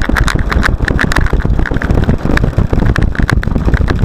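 Onboard sound of a Freewing MiG-29 RC model jet taxiing on asphalt: its twin electric ducted fans running steadily under a dense rattle and low rumble from the airframe and wheels.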